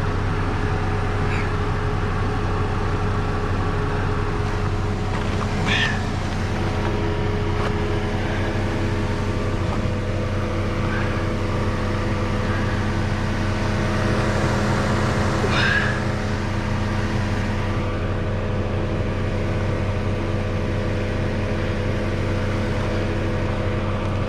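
Vehicle engine idling steadily, with a few short sharp clinks during the strap and winch rigging.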